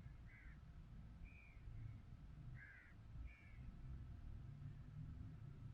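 Faint low wind rumble, with four short bird calls about a second apart over the first three and a half seconds.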